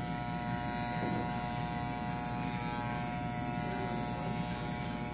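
Electric hair clippers running with a steady buzz while shaving a man's head.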